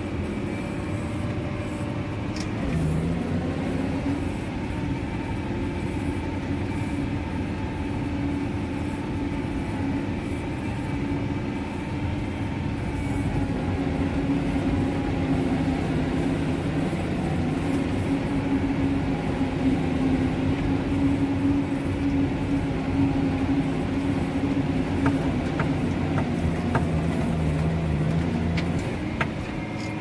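Tractor engine running hard under heavy load, heard from inside the cab as the front loader pushes through a deep snow drift. It is a steady drone, and its note shifts about two and a half seconds in.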